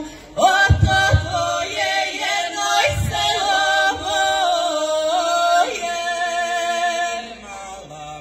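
Folk vocal group singing together, holding long notes and moving between them as one, with a few short low thumps about a second in and again at about three seconds.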